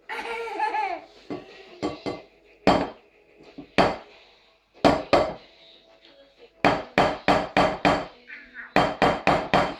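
Hard knocks on the thick shell of a rhea egg as it is struck to crack it open: a few single knocks, then two quick runs of about five knocks each.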